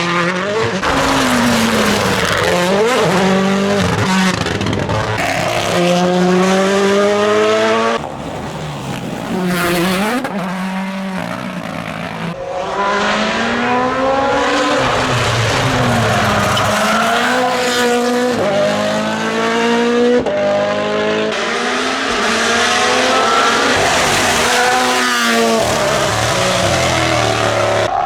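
Rally cars at full throttle, engines revving hard and changing gear, the pitch climbing and dropping back again and again as each car passes. Several passes are cut together, with abrupt changes about 8, 12 and 21 seconds in.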